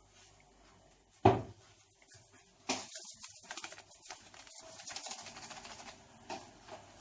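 A single loud knock about a second in, then about three seconds of rapid gritty rattling and scraping as ingredients go into a mixing bowl.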